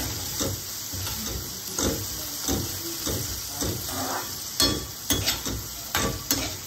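Steel spatula stirring and scraping chopped capsicum sautéing in hot oil in a stainless steel kadai, over a steady sizzle. Several sharp clinks of the spatula against the pan come in the second half.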